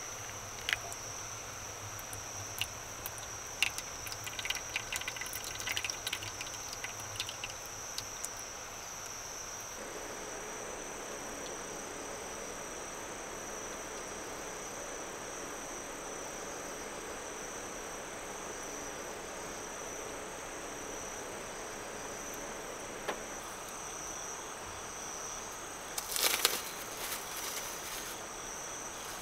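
A steady high-pitched chorus of insects singing. Scattered light clicks and taps come through the first several seconds, and a short burst of clattering comes near the end.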